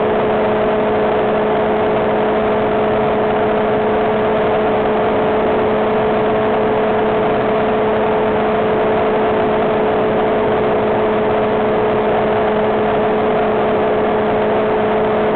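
Ultralight trike's engine and propeller running at steady power in flight, a constant drone with a few held tones, mixed with the rush of air past the open cockpit.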